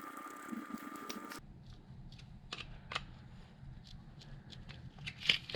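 Faint scattered clicks and taps of a screwdriver and small metal carburetor parts being handled. In the first second or so a faint steady high hum runs, then cuts off suddenly.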